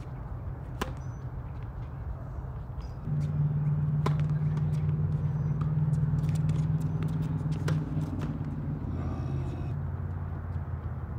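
Tennis ball struck by racquets three times on a hard court: a serve about a second in, then two rally shots a few seconds apart, each a short sharp hit. From about three seconds in a low engine-like rumble sets in, louder than the hits, and fades near the end.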